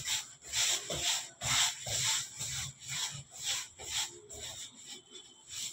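Hands rolling and shaping bread dough on a metal worktable: rhythmic rubbing strokes, about two a second, with a soft thump at each pass, growing fainter near the end.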